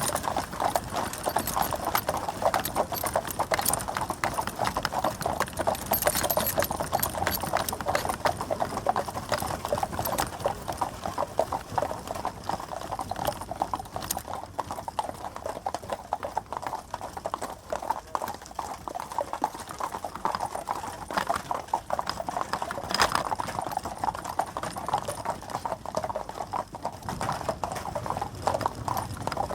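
Hooves of a four-horse team clip-clopping in a dense, steady rhythm as they draw a stagecoach, with one sharper clack about 23 seconds in.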